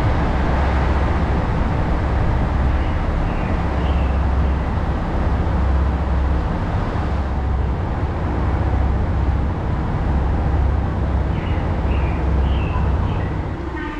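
JR Shikoku 2700 series diesel railcar idling at a standstill: a steady low engine rumble that swells and eases.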